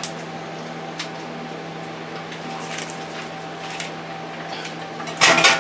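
Microwave oven running with a steady hum as bacon cooks inside. Near the end there is a short, loud clattering noise.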